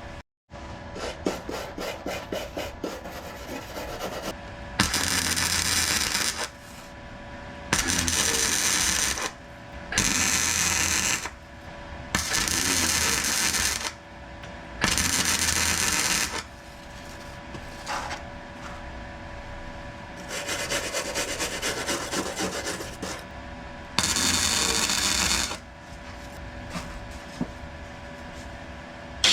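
Welder laying short stitch welds on car sill steel: repeated crackling bursts of the arc, each lasting one to three seconds, with brief pauses between them. A run of quick sputtering ticks opens the sequence, and a faint steady hum runs underneath.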